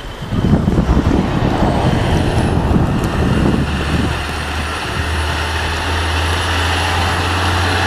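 A motor running steadily with a rushing noise over it, and a faint high whine that sets in about two seconds in.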